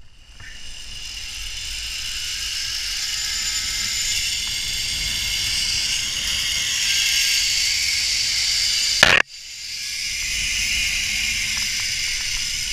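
Zip line trolley's pulleys running along the steel cable: a steady high hiss that builds as the rider picks up speed. It cuts off sharply with a click about nine seconds in, then builds again.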